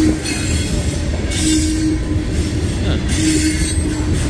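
Freight train tank cars rolling past at close range: a steady rumble of steel wheels on the rail, with a faint wheel squeal coming and going.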